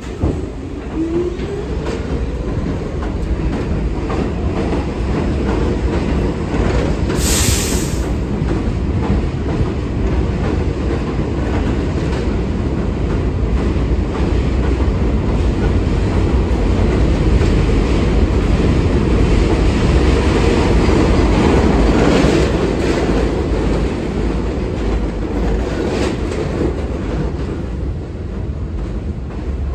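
R46 subway train rolling slowly past along the platform, its wheels clattering over the rail joints, with a short rising motor whine near the start. A brief hiss of air comes about seven seconds in.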